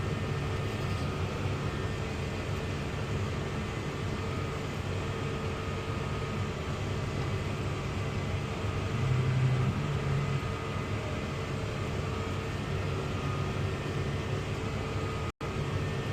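Tractor engine running at a steady drone, heard inside the cab with a fan-like hiss, while the tractor pulls a grain cart alongside a combine during an on-the-go unload. The sound swells slightly about nine seconds in and cuts out for an instant near the end.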